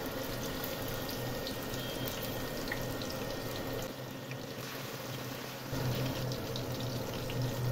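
Turmeric-and-salt-coated rui fish steaks sizzling in hot oil in a frying pan, a steady hiss with scattered pops and crackles.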